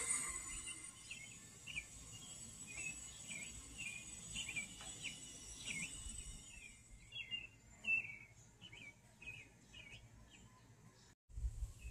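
Birds chirping in a run of short repeated notes, over a faint steady high-pitched whine that fades out about two-thirds of the way through.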